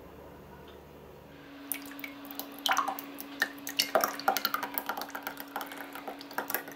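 Green gelatine-thickened soda slime poured from a jug into a glass: irregular splashing, plopping and dripping as it lands, starting about a second and a half in. A faint steady hum runs underneath.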